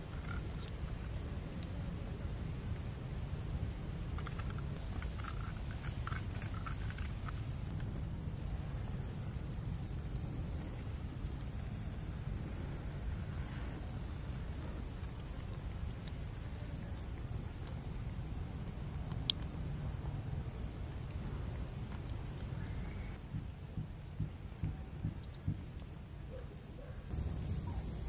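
Steady high-pitched chorus of insects buzzing, with a low rumble of background noise underneath and a few faint knocks near the end.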